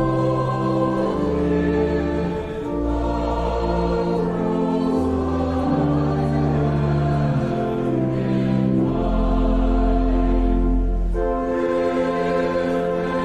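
Church music with choral singing: slow, held chords over deep bass notes, changing every second or so.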